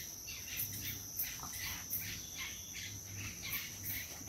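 Steady high-pitched insect chorus, with short chirps repeating about twice a second.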